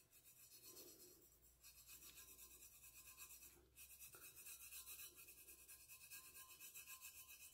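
Faint fingertip rubbing on a painted stainless steel tumbler as rust-coloured paint is worked into the surface: quick, regular strokes, pausing briefly a little past the middle.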